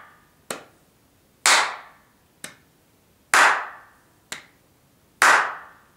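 Hand claps in a steady beat of about one a second, alternating loud and soft. The loud claps mark the first beat of a two-beat pattern, strong then weak.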